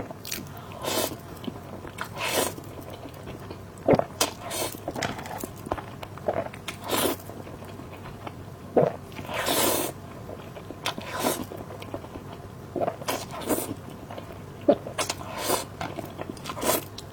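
Close-miked eating: a person biting and chewing food, with irregular short wet and crunchy mouth sounds.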